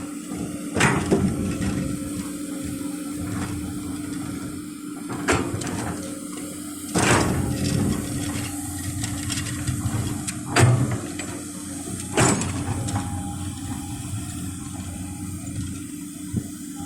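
Komatsu PC200 hydraulic excavator running steadily with a constant engine hum, broken by about five loud rushing crashes a few seconds apart as it loads material.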